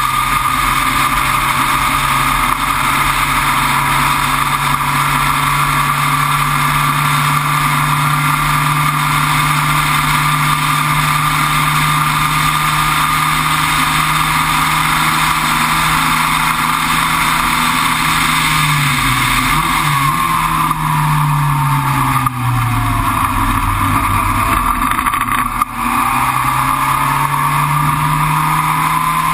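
Race car engine heard onboard, running at steady high revs, then dropping in pitch in steps through downshifts about two-thirds of the way in and climbing again near the end as it accelerates.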